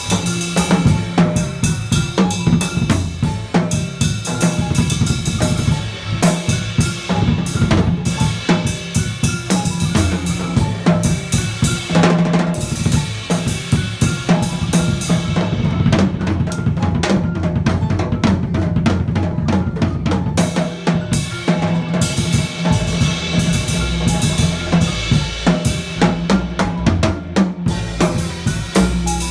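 Jazz drum kit played busily with sticks: rapid snare and rimshot hits, bass drum and cymbal crashes, over sustained upright bass notes.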